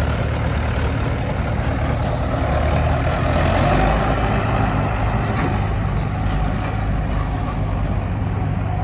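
Heavy diesel engine running steadily, swelling a little about three to four seconds in.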